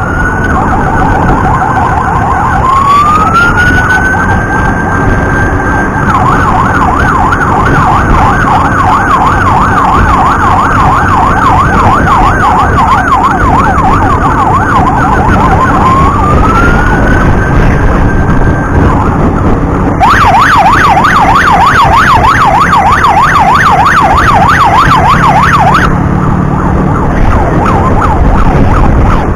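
Electronic emergency siren switching between slow rising wails, each holding at the top, and a fast repeating yelp. For a few seconds past the middle the yelp gets louder and faster. Road and engine noise run underneath.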